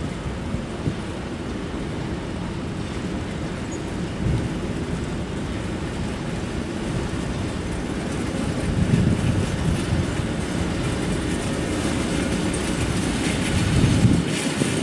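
SM42 diesel shunting locomotive running as it hauls a slow freight train of covered hopper wagons past, with the clatter of the wagons' wheels on the rails. It grows louder toward the end as the train comes closer.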